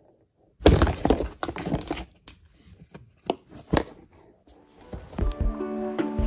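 Cardboard box crackling and knocking as a plastic stick is poked and jabbed into a torn hole in it: a run of irregular sharp cracks and thuds. Near the end, acoustic guitar music comes in.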